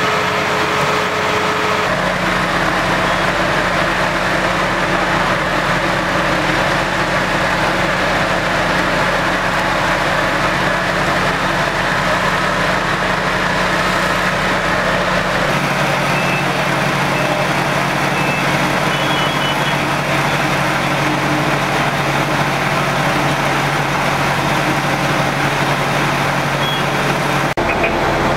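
Fire engines' diesel engines running steadily, a loud even drone with a low hum that changes pitch about 2 and 15 seconds in.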